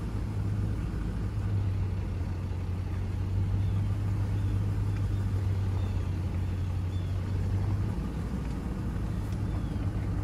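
Vehicle running, heard from inside its cabin as it rolls slowly: a steady low engine hum over road rumble. The hum drops away about eight seconds in.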